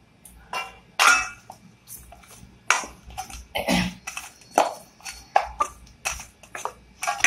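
Hands kneading dough in a stainless steel bowl: an irregular string of squishes and knocks against the bowl, the loudest about a second in.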